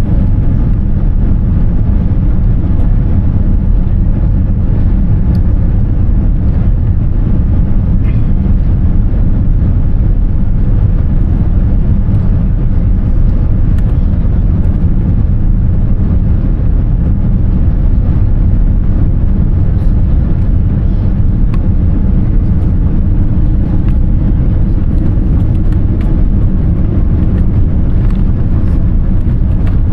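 Steady low rumble inside the cabin of a Boeing 787-10 airliner, heaviest in the bass, with no sudden knocks or changes.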